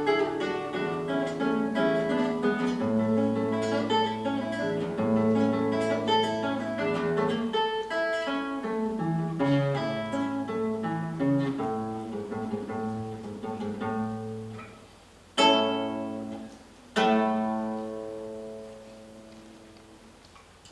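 A plucked string instrument playing the closing bars of a piece: a flowing run of notes over a bass line, then two loud final chords about a second and a half apart, the last one left ringing and slowly fading.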